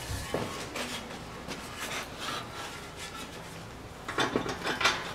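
Metal exhaust pipes of a Chevrolet Niva rubbing and scraping as a new resonator is worked into place by hand. Near the end comes a louder run of scraping and knocks.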